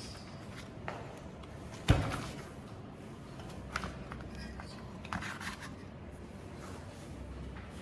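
Parts of a belt sander being handled during disassembly as its housing comes off: a few small clicks and rubs, with one sharp knock about two seconds in.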